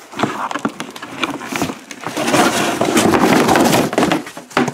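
Cardboard and plastic packaging being handled and pulled apart: dense crackling and scraping with small knocks, loudest about halfway through.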